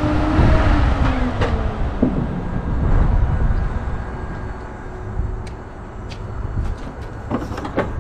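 Wind buffeting the microphone in a heavy low rumble, with a few short sharp clicks in the second half.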